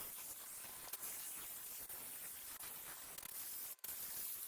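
Can of compressed air spraying a steady hiss, blowing dust out of the inside of a laptop, with a brief break near the end.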